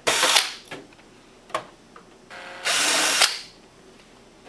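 Cordless Makita drill/driver running in two short bursts, one right at the start and a longer one about two and a half seconds in, backing out the screws that hold a laser printer's top cover. A few light clicks fall between the bursts.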